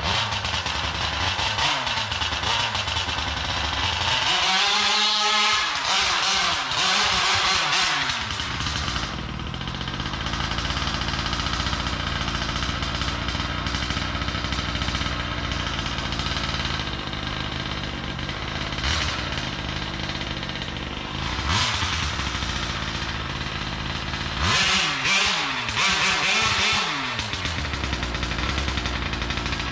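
50cc GT Taylor two-stroke engine of a Kraken Vekta 5 large-scale RC car running, revving up and back down about four seconds in and again about twenty-five seconds in.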